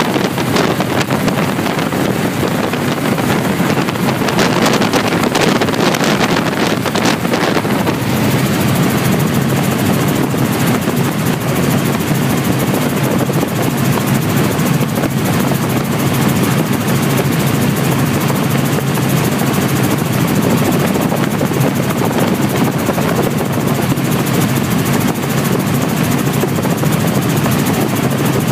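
Helicopter in flight: steady rotor and engine noise. Wind buffets the microphone in gusts for the first several seconds.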